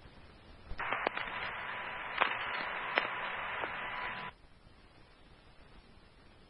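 Two-way fire radio channel keyed open with no voice: a burst of static hiss with a faint steady tone and a few clicks lasting about three and a half seconds, then cutting off sharply to faint background hiss.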